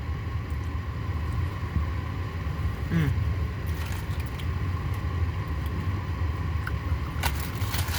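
Steady low rumble, with a short murmur from a voice about three seconds in.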